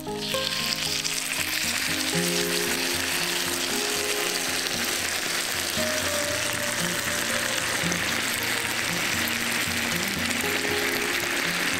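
Gravy poured into a hot cast iron pan of fried Leberkäse and potatoes, sizzling loudly the moment it hits, then a steady, even sizzle.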